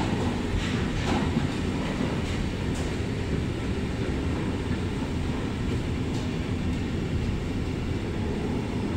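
Intermodal freight train of container and swap-body flat wagons rolling past, a steady rumble of wheels on the rails, with a few brief squeaks and clicks in the first second or so.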